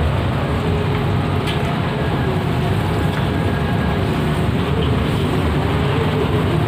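Steady low rumble of street traffic with no break or change.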